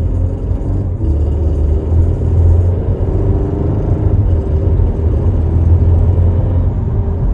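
Audi A5 accelerating: a steady low engine rumble with a rattling, clattering noise whose cause the owner cannot identify. It happens with or without the air conditioning running.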